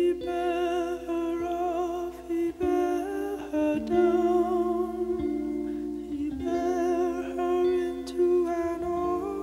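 Slow, calm background music of long held notes, with a wavering melody line on top that sounds like wordless humming.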